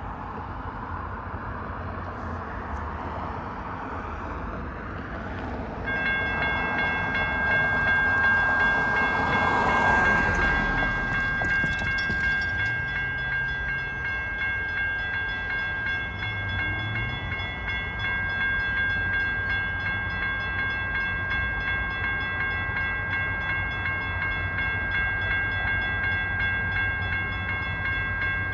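Railroad crossing warning bell starts ringing about six seconds in and rings on steadily as the crossing activates for an approaching train. A car passes soon after it starts, over a low steady rumble.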